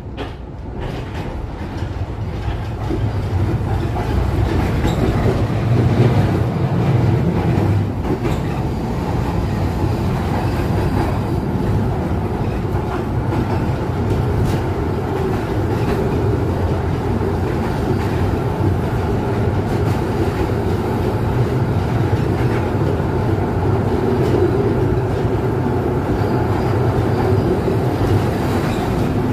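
1960 Duewag GT8 tram heard from inside the car as it gets under way and runs along the track. The rumble of wheels on rail grows over the first few seconds, then holds steady with a few clicks.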